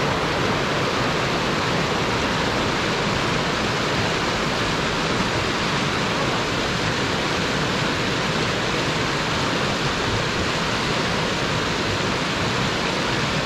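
Steady rush of white water churning through a rock weir.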